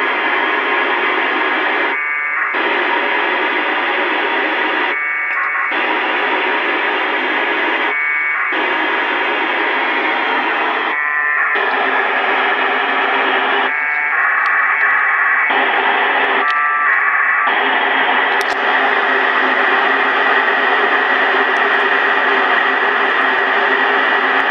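FM transceiver tuned to 145.825 MHz, the ISS APRS packet downlink: steady band hiss, broken every two to three seconds by short packet data bursts that quiet the hiss, with no bursts in the last several seconds.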